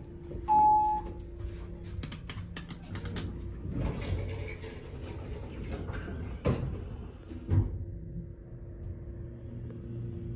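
ThyssenKrupp hydraulic elevator: one short, loud beep about half a second in, then clicks and knocks as the doors close, two sharp thumps, and a steady hum as the car sets off.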